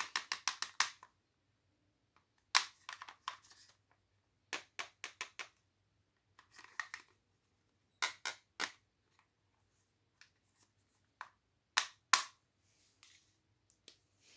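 Small hard-plastic toy hair dryers clicking and knocking as they are handled, in short bursts: a quick run of clicks at the start, then clusters of a few sharp clicks every second or two.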